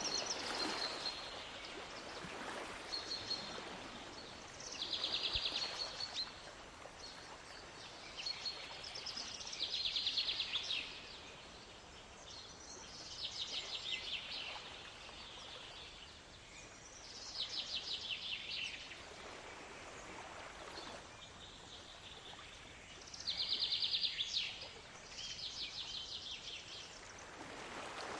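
A songbird repeating short, rapid trilled song phrases every few seconds over a steady wash of sea waves, with waves surging louder near the start, about two-thirds of the way through, and at the end.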